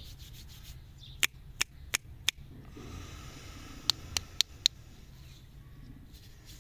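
A chewy lollipop's wrapper is handled in the fingers: two quick runs of four sharp crackles, about a second apart, with a brief rustle of the wrapper between them.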